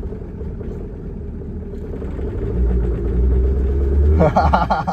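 Volkswagen 1.9 TDI four-cylinder turbodiesel with a rumble tune running just after a cold start, a lumpy low rumble. It is given fuel about halfway through and runs louder and heavier for a second and a half, then eases off near the end.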